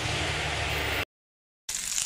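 A steady low hum with hiss cuts off abruptly about a second in. After a short dead gap, a soldering iron starts sizzling and crackling with small clicks as its tip heats a copper wire near the end.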